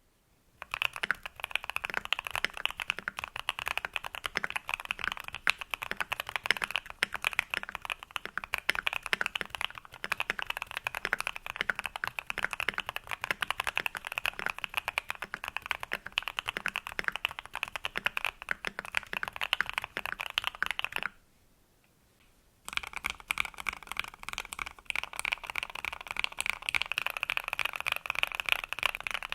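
Mechanical keyboard with thick PBT Cherry-profile keycaps and C3 Equalz Banana Split switches being typed on fast and continuously. The typing breaks off for about a second and a half a little over two-thirds of the way through, then resumes.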